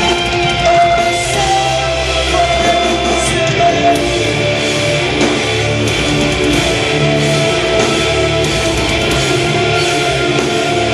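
Metalcore band playing live through a club PA: distorted electric guitars over bass and drums, loud and continuous.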